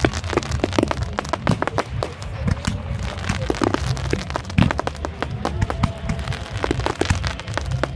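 Fireworks display: a dense, unbroken run of sharp cracks and pops from bursting shells and crackling effects, over a steady low rumble.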